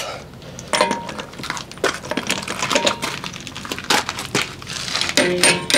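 Ratchet head of a long heavy-duty torque wrench clicking and clinking on semi-truck lug nuts as it is fitted and swung into position: a run of sharp, irregular metal clicks, some with a brief ring.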